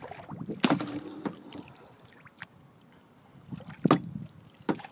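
Kayak paddle working through lake water: trickling and splashing, with two sharp strokes, one about half a second in and a louder one near the end.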